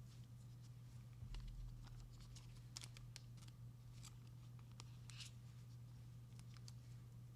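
Faint, light scrapes and ticks of trading cards being handled and slid against each other, over a steady low hum.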